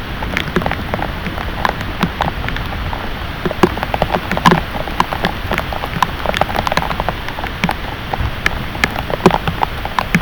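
Heavy rain falling steadily, with many loud, irregular drops smacking a hard surface close by over a constant hiss.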